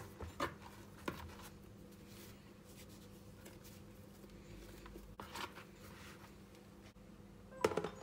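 Hands handling pizza dough in a plastic bowl: soft rustles and a few sharp clicks. Near the end a plastic lid is set onto the bowl with a cluster of knocks, the loudest sound, over a faint steady hum.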